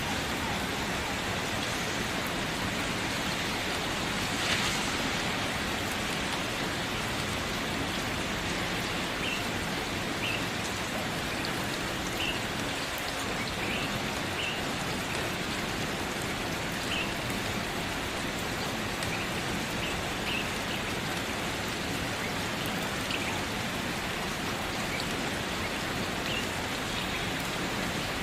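Steady rain falling, an even continuous hiss, with one louder splash about four and a half seconds in.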